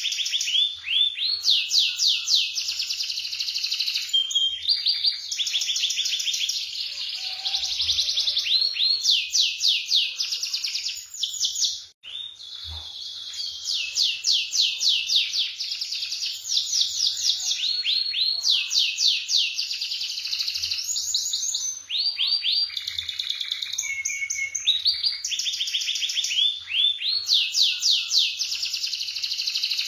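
Domestic canary singing in fast rolling trills, phrase after phrase of rapidly repeated high notes, with a short break about twelve seconds in.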